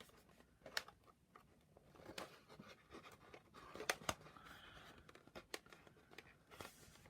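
Faint handling of paper craft pieces: scattered light taps and soft rustling as glued paper tabs are pushed into place.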